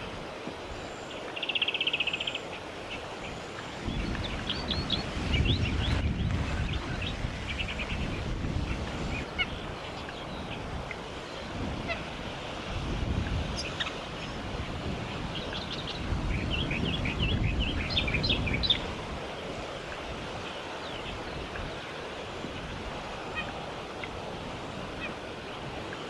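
Wind gusting on the microphone several times, as a low rumble. Between and over the gusts, birds give short high chirps in quick runs.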